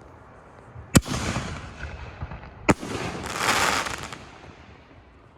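A 5-inch canister firework shell going off: a sharp bang about a second in, a second sharp bang about a second and a half later, then a rushing hiss that swells and fades.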